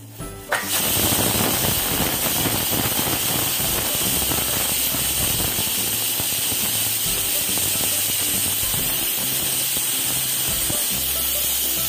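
Aluminium pressure cooker whistling: steam hisses loudly and steadily out of its weight valve, starting suddenly under a second in and running on for about eleven seconds. The cooker has come up to pressure and is letting off its first whistle.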